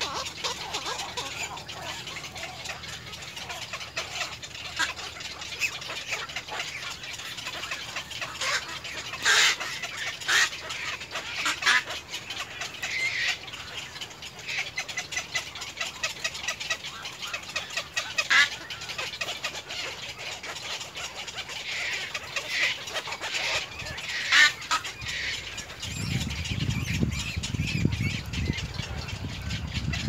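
Birds squawking with short, harsh calls scattered irregularly, a few of them louder and sharper. Near the end a low rumble joins in.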